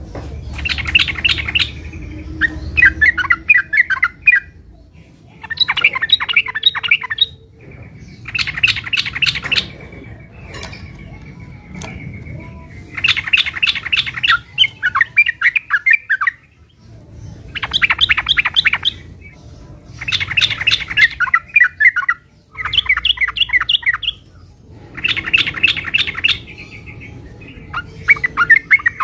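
Yellow-vented bulbul (trucukan) singing loudly in a fighting mood: bursts of rapid, chattering notes a second or two long, repeated one after another with short pauses between them.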